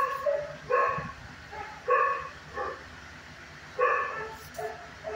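A dog barking repeatedly, about one bark a second, in a kennel with concrete floors and block walls.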